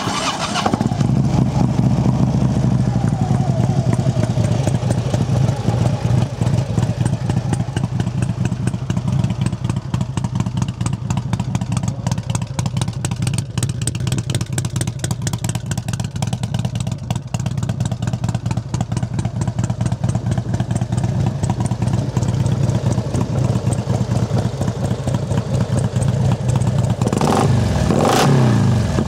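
2008 Harley-Davidson Road King Classic's 96-cubic-inch fuel-injected V-twin, fitted with Screaming Eagle heads, starting up and then idling with a loping beat, which the seller puts down to aftermarket cams. Near the end the throttle is blipped once and the revs rise and fall.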